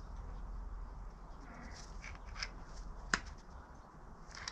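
A few light, sharp clicks and taps of small hand tools against a motorcycle brake caliper while its pistons are pushed back in, the clearest click about three seconds in, over a low steady hum.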